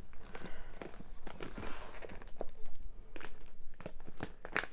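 Clear plastic sleeves holding paper pads crinkling and rustling as they are handled and flipped through by hand, with small clicks and taps and a sharper tap near the end.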